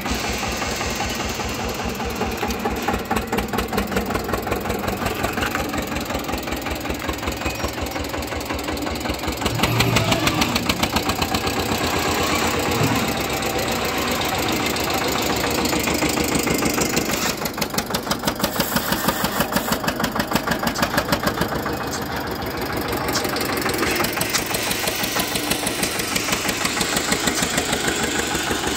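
Eicher tractor's diesel engine running with a fast, even beat while its front loader works, louder for a couple of seconds about ten seconds in.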